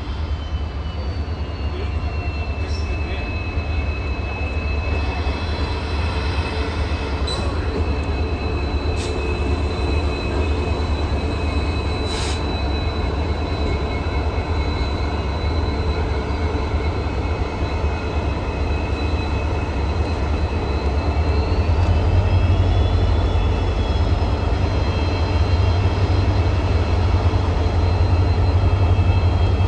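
EMD 16-cylinder 710G3B two-stroke diesel engine of a WDP-4 locomotive running, a deep steady rumble under a high turbocharger whine. About two thirds of the way through the whine climbs in pitch and the engine grows louder as it picks up speed.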